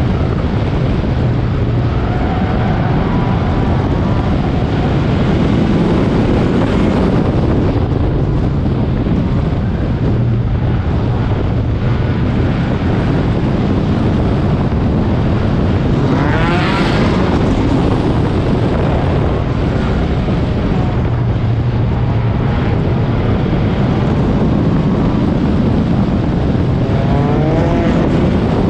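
Four-cylinder race car engine running hard under load, its revs rising and falling through the corners, with wind buffeting the onboard microphone.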